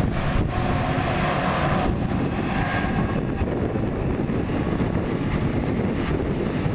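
A passing train: a loud, steady rumble of wheels on the track with faint steady tones on top.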